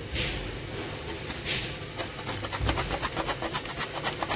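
Raw potato being sliced on a handheld steel potato-chip slicer: two rasping strokes across the blade, then a fast run of short scraping clicks, several a second, as the potato is worked back and forth.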